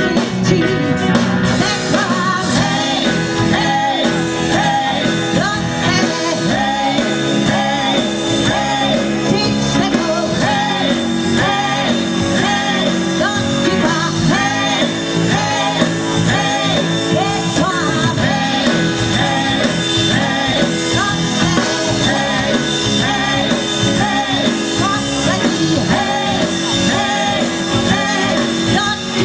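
Live rock band playing with a woman singing lead: drums, electric guitar and keyboards under her voice, all amplified through a PA at a steady, loud level.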